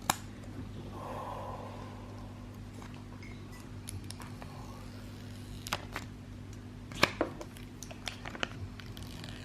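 Scattered clicks and a brief rustle of an iPhone X and its box being handled during unboxing, over a steady low electrical hum.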